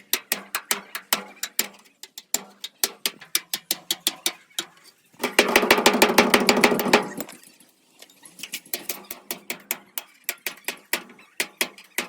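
Hammer blows on sheet metal, the sharp, irregular knocks of panel beating, about three or four a second. Between about five and seven seconds in, a dense, buzzing run of very rapid strikes lasts about two seconds.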